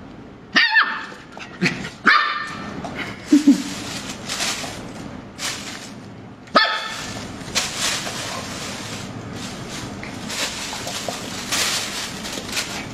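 Puppy yapping: a few sharp, high barks in the first seven seconds. After that, a thin plastic bag crinkles and rustles in repeated bursts as the puppy tugs and pounces on it.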